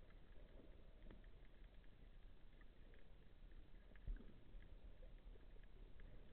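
Near silence underwater: a faint hiss with a few scattered soft clicks and one soft low thud about four seconds in, picked up by a camera on a speargun.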